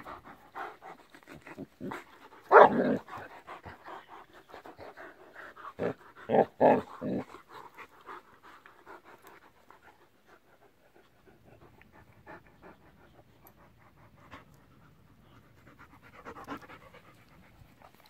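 Two dogs play-fighting, a white dog and a merle Great Dane, panting hard with soft mouthing and scuffling. A few short louder sounds come about two and a half seconds in and again around six to seven seconds in. The second half is quieter.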